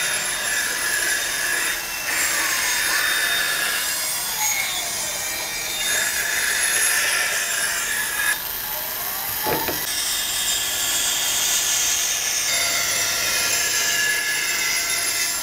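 Band saw cutting through a wooden board along a marked line: a steady high hiss from the blade, with squealing tones that come and go as the board is fed and turned.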